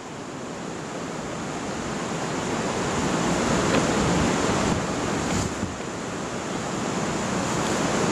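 Steady rushing of river water, growing louder over the first few seconds as the bridge is approached.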